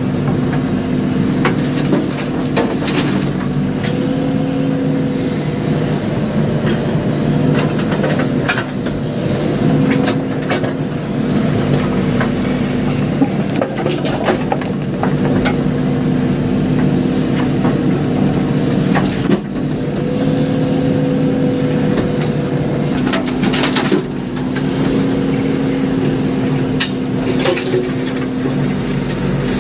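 JCB backhoe loader's diesel engine running steadily, heard from inside the cab, its note changing at times as the loader arm is worked. Occasional short knocks as stones are handled with the bucket.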